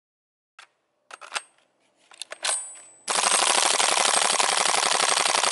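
Army Armament G36 gas-blowback airsoft replica firing a long full-auto burst: a rapid, even rattle of shots and bolt cycling for about two and a half seconds that cuts off suddenly, emptying the rest of the magazine. A few separate clicks and knocks come before it.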